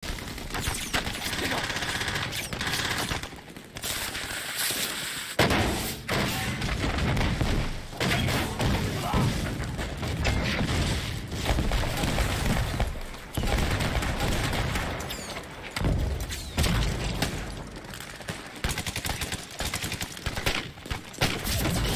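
Film battle soundtrack: dense rifle and machine-gun fire runs throughout, with heavy explosions booming several times.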